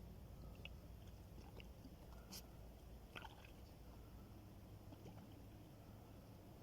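Faint pouring of petrol from a bottle onto wet firewood, with a few light clicks over a low steady rumble.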